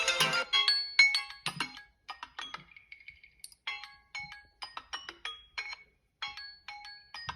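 Samsung Galaxy phone alarm or timer tone playing a tune of short, chiming, marimba-like notes in phrases with short gaps between them. A louder, denser tone cuts off about half a second in.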